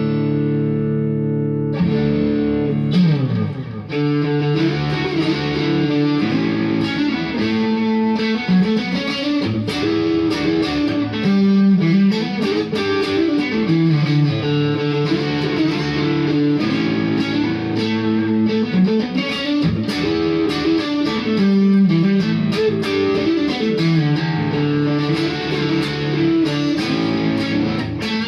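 Kogai Tele 72 Custom electric guitar played through a Randall RG50TC valve amp with a light overdrive: a ringing chord at the start, then improvised lead lines and chords with string bends.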